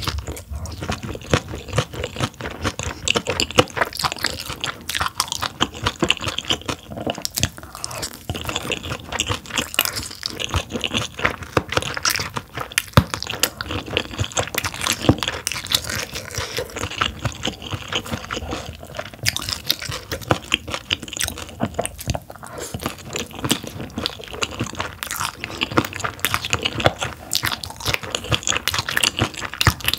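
Close-miked chewing and crunching of steamed yellow stingray, a dense run of quick wet crunches and mouth sounds.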